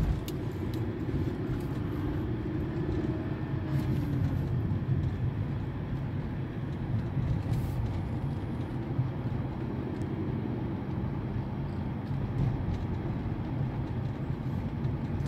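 Mercedes-Benz E200 (W211) driving: a steady low rumble of engine and road noise with no crackling or clunking from the front suspension, which is quiet after its stabilizer bar, stabilizer links and lower control arm were replaced.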